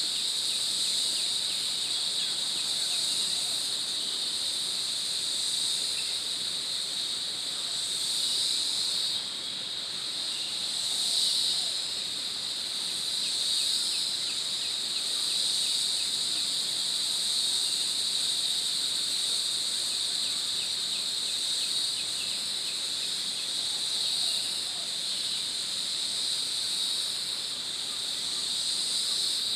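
Steady, high-pitched insect chorus droning without a break, with faint rapid ticking underneath.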